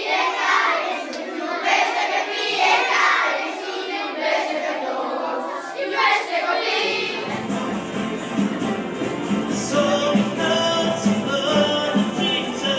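Children's voices, singing and calling out, for about seven seconds, then an abrupt change to a choir singing a worship song with steady held notes and a low accompaniment.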